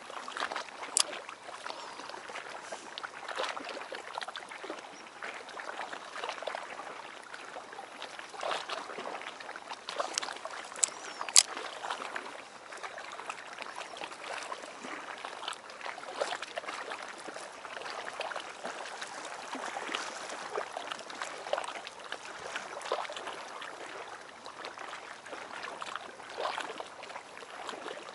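Small waves lapping and sloshing against a concrete harbour wall and rocks, an irregular splashing that never settles. A few sharp clicks stand out, about a second in and twice more about ten to eleven seconds in.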